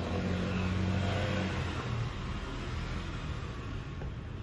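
A motor vehicle passing nearby, its engine loudest in the first two seconds and then fading away.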